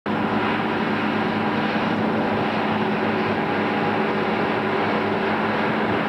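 Engines of two Lamborghini tractors, a Formula 115 and a Racing 165, running steadily under load as they pull a seven-furrow plough in tandem; a continuous engine drone with a steady hum.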